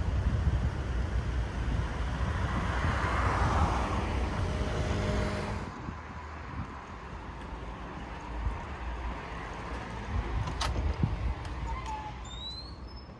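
Street ambience with a car passing: a low rumble and hiss that swell and fade. About six seconds in it drops suddenly to a quieter background, with a few sharp clicks and short high chirps near the end.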